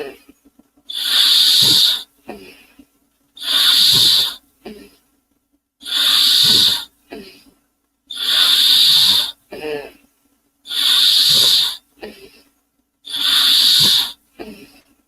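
A person imitating a steam engine with the mouth: six long, loud hisses, one about every two and a half seconds, with a short throaty breath or grunt between each.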